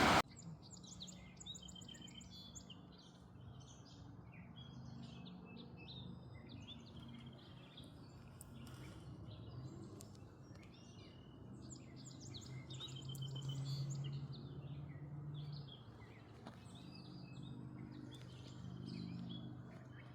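Songbirds singing and chirping, with repeated trilled phrases. Underneath runs a low steady hum that swells briefly about two-thirds of the way through.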